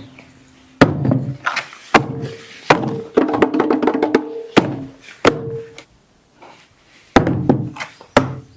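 Music played through a portable Bluetooth party speaker: sparse, sharp percussive hits with short pitched notes between them, falling silent for about a second around six seconds in before the hits return.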